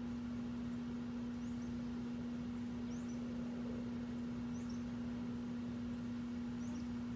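A steady low hum, with a small bird's short, high rising chirp repeated four times about a second and a half apart.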